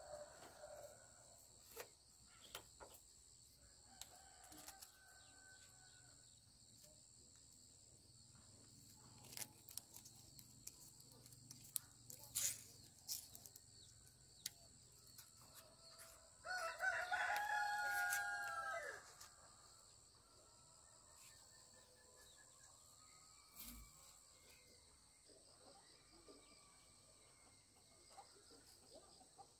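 A rooster crows once, a call of about two and a half seconds, over a steady high insect drone. Fainter fowl calls come and go, with a few sharp knocks in the middle.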